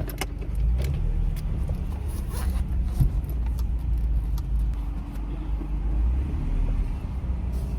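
A car running, heard from inside the cabin as a steady low rumble, with a few faint clicks.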